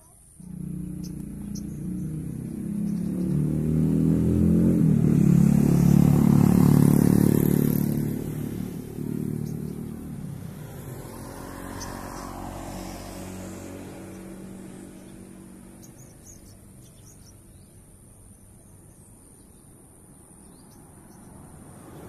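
A motor vehicle engine passing by. It cuts in suddenly, grows to its loudest about six seconds in, then slowly fades away.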